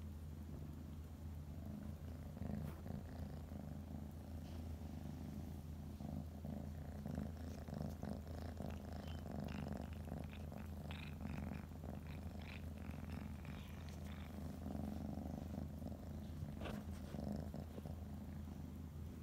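Domestic tabby cat purring steadily, a continuous low rumbling hum, while lying relaxed.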